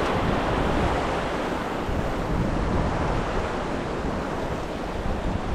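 Small waves washing and foaming over a rocky coral reef flat, with wind rumbling on the microphone.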